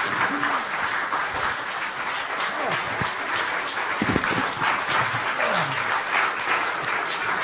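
Audience applauding steadily, with a voice or two briefly heard through the clapping.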